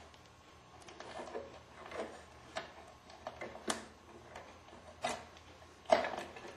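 Small clicks, ticks and rustles of hands pulling a timer motor's power wires apart inside a water-softener control valve's housing, with a few sharper clicks near the middle and near the end.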